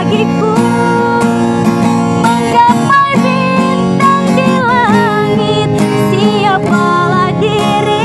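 A woman singing high, ornamented melodic lines (cengkok) with held notes that waver in vibrato, accompanied by a plucked and strummed acoustic guitar.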